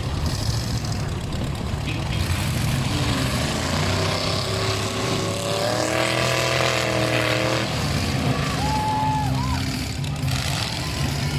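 Demolition derby trucks' engines running and revving in the arena, a steady engine drone throughout, with a pitched tone for a couple of seconds midway and a short higher tone near the end.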